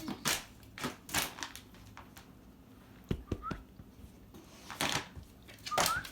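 A dog sneezing several times: short, sharp bursts, with a couple of brief rising squeaks between them.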